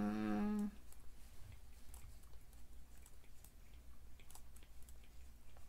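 A person hums a short, steady "mm" note, then faint, scattered little clicks and ticks.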